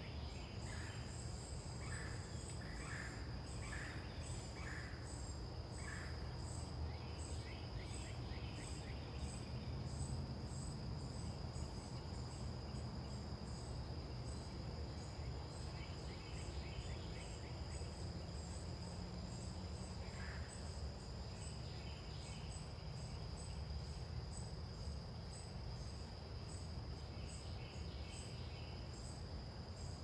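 Crickets and other insects chirping without pause: one steady high trill and a faster pulsing chirp, about two pulses a second. Over it, wild birds call: a run of short repeated notes in the first six seconds, then brief twittering phrases every few seconds, all over a steady low rumble.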